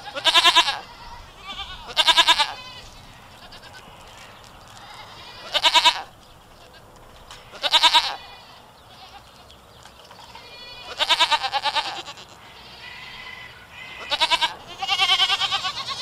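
Goats bleating: about seven loud, quavering calls, each half a second to a second long, coming every one to three seconds.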